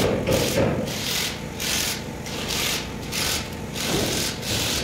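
Rhythmic hand rubbing strokes across the metal of a Weichai diesel truck engine block, about two strokes a second, a dry scraping like sanding or filing as the block surface is cleaned up.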